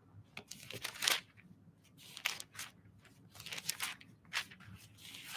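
Paper being handled, rustling and crinkling in short, irregular bursts.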